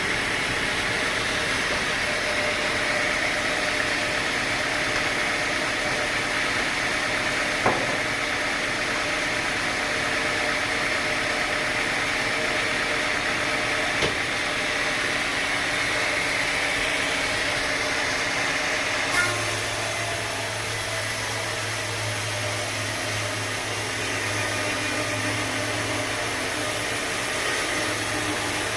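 Sawmill machinery running steadily, with two short knocks. About two-thirds of the way through the sound changes abruptly and a low steady hum comes in.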